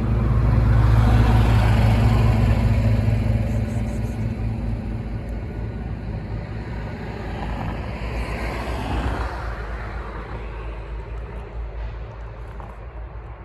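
Street traffic: motor vehicles passing, a low rumble loudest about a second in, then a second one swelling and fading around eight seconds in.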